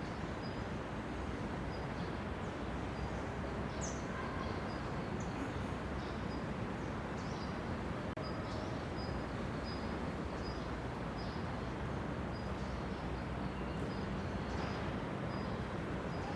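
Steady outdoor background noise with a short high note repeating evenly about every two-thirds of a second, and a few brief bird chirps scattered through.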